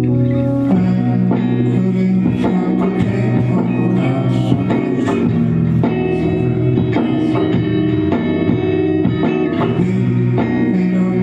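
Live rock band music: guitar over bass and drums.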